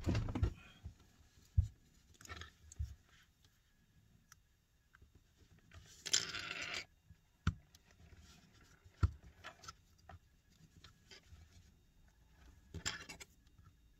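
Scattered scraping, tapping and clicking of a pry tool working at the edge of an iPad Mini's glass screen, with one harsher scrape lasting about a second near the middle and a few sharp clicks after it.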